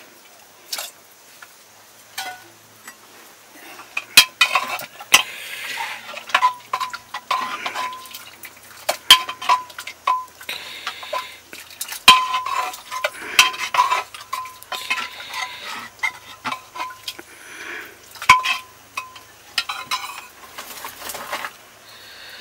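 Utensil stirring and scraping inside an aluminium pot, with repeated clinks and knocks against the metal and a short ringing note after many of the strikes.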